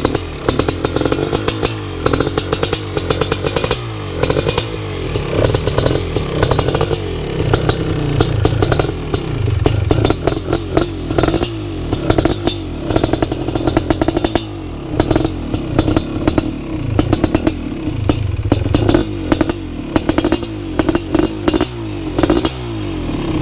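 BRC 500 kit engine in a 2015 Husqvarna TE 250 dirt bike, running on its first start-up, its revs rising and falling as the throttle is worked.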